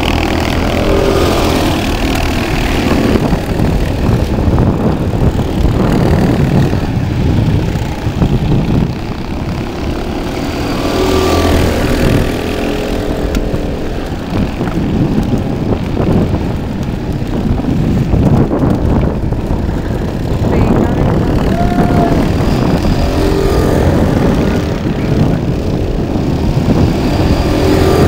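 Several go-kart engines racing round the track, their pitch rising and falling as they accelerate and lift off for the corners, the sound swelling and fading as the karts pass.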